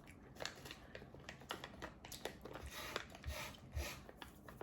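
Quiet, irregular clicks and crinkly rustles of an MRE trail-mix pouch and its contents being handled, with a few louder rustles about halfway through.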